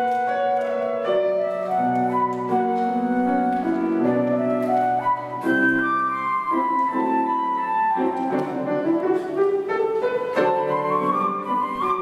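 Flute playing a classical melody with grand piano accompaniment, the flute line climbing in a run of quick notes near the end.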